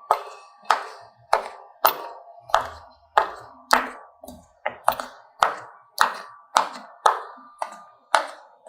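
A steady series of sharp taps, about one every half second and a bit over fifteen in all, each with a short ringing tail fading before the next.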